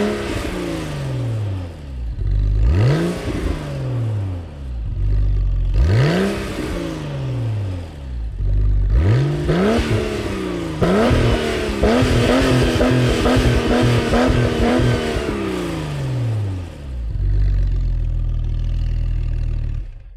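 Sports car engine blipped repeatedly, each rev rising sharply and falling back. It is then held at high revs with a rapid stutter for about three seconds, drops back and settles into a steady idle before cutting off.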